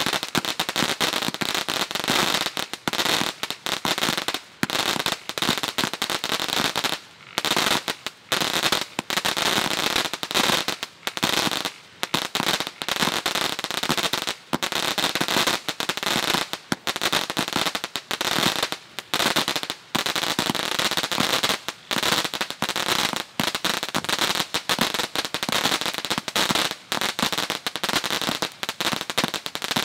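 Ginger Strike, a 100-shot consumer firework cake, firing. Its shots and small bursts go off in a dense, rapid string of pops and crackles, broken by a few brief lulls.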